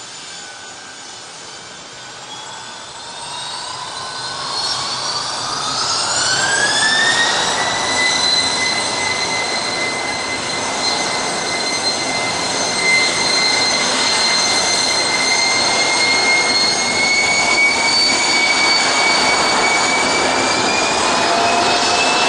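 A rear-engined twin-jet airliner's engines spooling up: the turbine whine rises steeply about five seconds in, then holds at a steady high pitch over a growing roar, and starts climbing again near the end as more power is added and the jet begins to roll.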